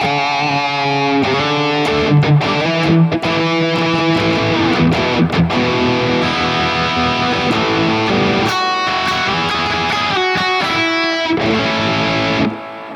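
Distorted electric guitar played through the Mooer Prime S1 modeler on its 5153 high-gain amp model: riffs and held lead notes, with a brief pause near the end.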